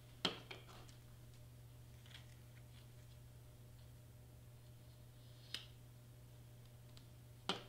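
Handling of a cordless hot glue gun and stiff cardstock: a few sharp clicks and taps, the loudest just after the start and another near the end, with quiet between over a faint steady low hum.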